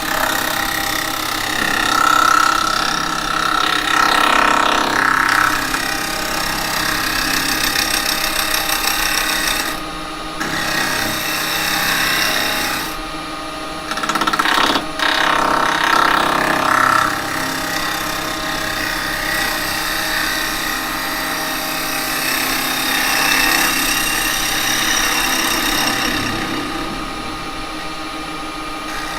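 A 6mm carbide hollowing cutter scraping out the inside of a spinning cherry-wood hollow form, over the steady hum of an Axminster lathe. The cutting noise breaks off briefly twice in the middle as the tool comes off the wood.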